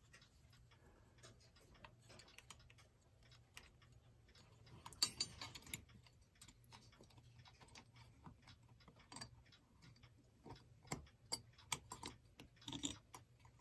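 Faint, irregular clicks and taps of small metal clock parts being handled as the housing is slid up the wire and fitted over the clock's motor and gear assembly, over a faint steady low hum.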